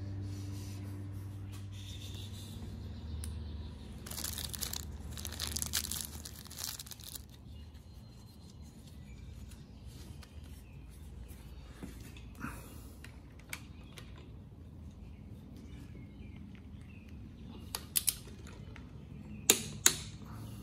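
Hand work on a jet-ski engine during assembly: a few seconds of rustling noise about four seconds in, then quiet handling with a few sharp metal clicks near the end as a holding tool and parts are worked against the engine.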